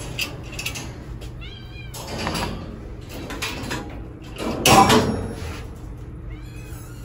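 Cats meowing in short high calls, with a louder metallic clatter from the wire cages about two-thirds of the way through.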